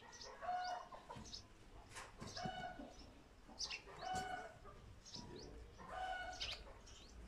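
Silver Sebright bantam chickens clucking softly: short calls repeat about every two seconds, with brief high chirps in between.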